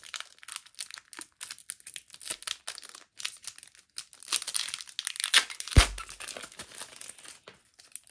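Foil Digimon card game booster pack wrapper being torn open and crinkled by hand: a dense run of crackles and small rips, with one sharp thump about six seconds in.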